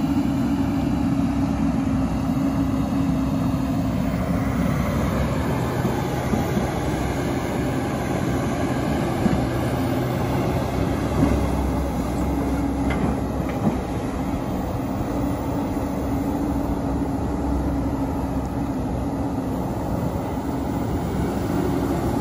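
Hyundai hydraulic excavator's diesel engine running steadily under working load as it digs dirt and loads a dump truck, the engine note swelling and easing with the hydraulics. A few short knocks sound around the middle.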